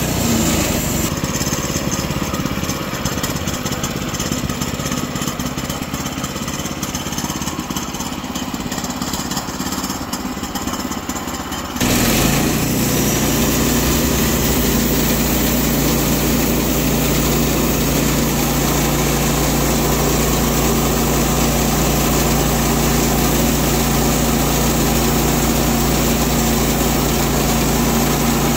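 Petrol engine of a Woodland Mills HM122 portable bandsaw mill running steadily under load as the band blade cuts through a pecan cant. About twelve seconds in the sound jumps abruptly to a louder, fuller running.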